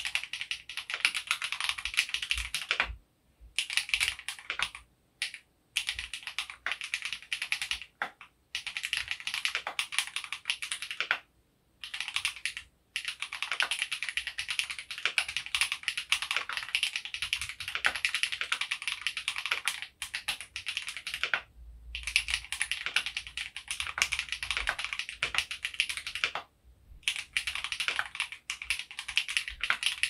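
Typing on a GMMK Pro mechanical keyboard with lubed Holy Panda tactile switches, a polycarbonate plate and GMK keycaps: rapid runs of keystrokes broken by brief pauses every few seconds.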